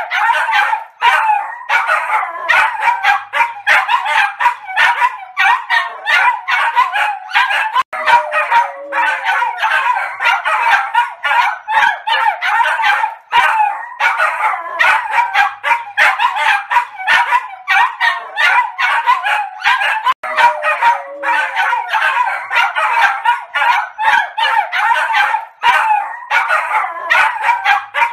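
Three small dogs barking together nonstop: rapid, high-pitched, overlapping barks with hardly a pause.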